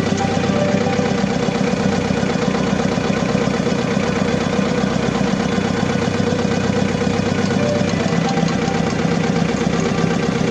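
Diesel engine idling unevenly with a misfire and vibration, which the owner puts down to injector nozzle tips that do not spray well.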